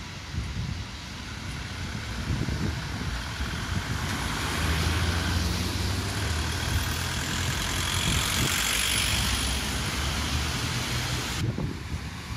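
A road or rail vehicle passing close by in street traffic, over wind on the microphone. Its sound swells about four seconds in, with a steady low hum under it, and cuts off sharply near the end.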